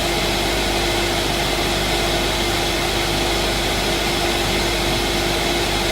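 Refrigerator's internal buzz: a steady, unchanging hum with one constant tone over an even hiss.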